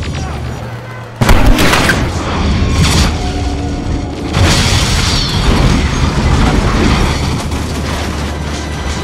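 Film sound effect of a spacecraft being blown apart: a loud explosion boom about a second in, with further blasts around three and four seconds in, over background music.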